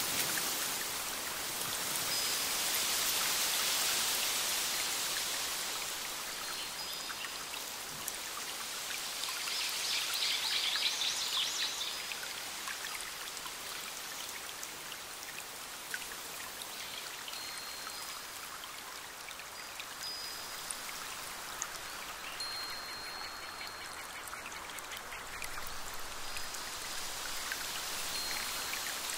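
Steady hiss of running or falling water, like a forest stream or rain. Short high chirps come now and then, and there is a brief trill about ten seconds in.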